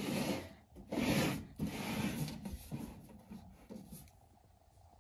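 Sony double cassette deck being handled and turned around on carpet: its case rubbing and scraping against the carpet pile in several bursts, loudest about a second in, dying away after about four seconds.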